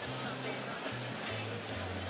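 Rock band playing live through a concert hall PA: a moving bass line under cymbal strikes on a steady beat.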